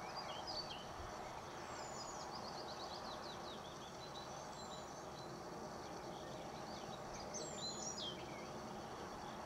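Outdoor birdsong over a steady background hiss: scattered high chirps near the start, a quick trill of repeated notes about two seconds in, and another burst of chirping near the end.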